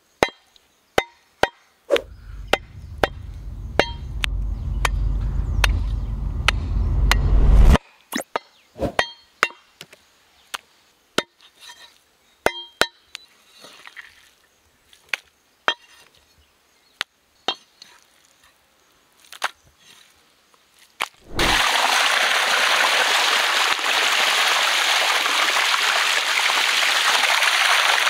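Sharp clinks or knocks about twice a second, with a low rumble that builds for several seconds and stops abruptly. About three-quarters of the way through, a steady rush of running or pouring water starts and carries on.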